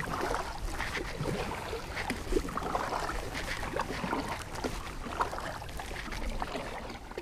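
Water lapping and splashing against the hull of an Old Town Sportsman 120 kayak as it is paddled, with many small irregular splashes and knocks.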